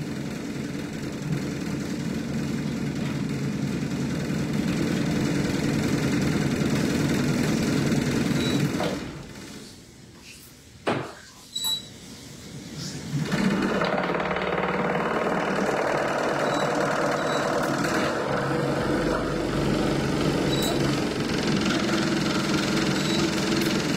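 A motor running steadily, stopping about nine seconds in. Two short knocks come in the pause, and the motor starts again about four seconds later and runs on.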